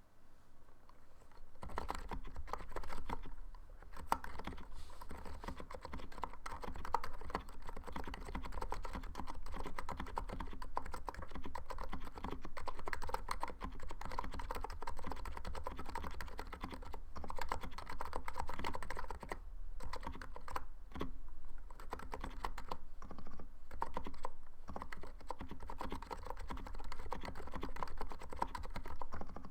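Continuous fast typing on a stock Niz Plum 68 electro-capacitive keyboard, starting about a second and a half in, with dense overlapping keystrokes. The plate mounting has been steadied with sticky putty to stop the spacebar rattling.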